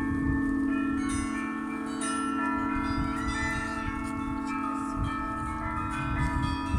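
Russian Orthodox monastery bells being rung: a deep, steady hum from the large bell underneath, with smaller bells struck in quick clusters above it.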